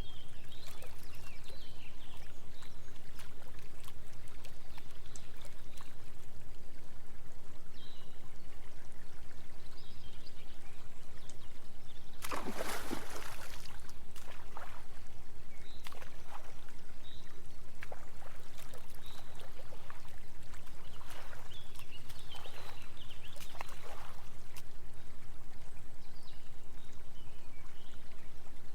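Small waterfall trickling and splashing over steady low binaural-beat tones, with one louder splash about halfway through.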